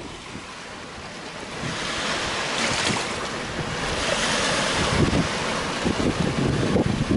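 Sea waves washing over a rocky, stony shore, the surf's hiss swelling and easing, with gusts of wind buffeting the microphone.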